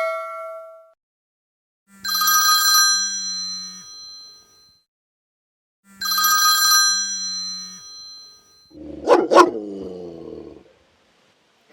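An old-style phone ringtone rings twice, each ring about two seconds long. About nine seconds in, an aggressive dog starts barking and growling.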